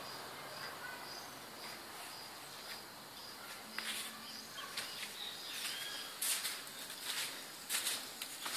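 An insect chirping steadily, a high, thin pulse repeating about twice a second, with a few brief bird calls. In the second half there are several short knocks and scuffs, louder than the chirping.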